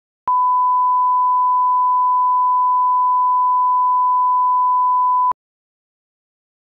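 Television line-up test tone, the reference tone played with colour bars at the head of a broadcast tape for setting audio levels. It is a single steady pure beep at one pitch that starts about a third of a second in and cuts off suddenly about five seconds later.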